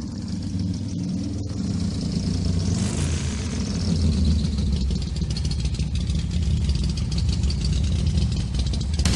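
Vehicle engine and road rumble, a steady low drone that slowly grows louder.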